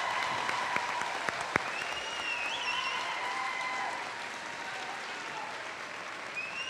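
Crowd applauding the newly declared graduates, with a couple of high wavering whistles about two seconds in and again near the end.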